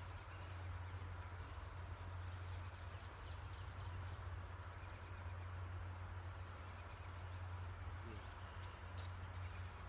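A steady low hum of background noise, then about nine seconds in a single short, sharp blast of a dog-training whistle, the signal for the pup to sit.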